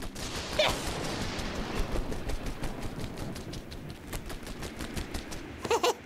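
Cartoon sound effect of a rapid rhythmic flutter, like a small helicopter's rotor, as a cartoon chick hovers on its wings. It runs steadily throughout, and short squeaky cartoon chirps come about half a second in and again near the end.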